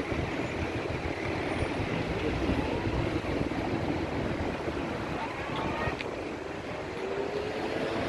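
Articulated Tatra KT4 tram rolling past close by, with a steady rumble of its wheels and running gear. A faint whine comes in near the end, and there is a single click about six seconds in.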